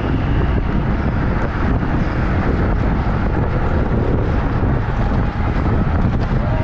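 Steady wind buffeting a GoPro's microphone as a racing bicycle rides at speed, with road noise underneath.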